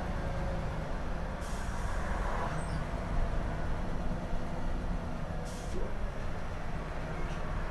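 Scania L94IB city bus heard from inside the cabin while under way: steady engine and road rumble, with a faint whine sliding down in pitch over the first second or so. There are two brief hisses of air, about a second and a half and five and a half seconds in.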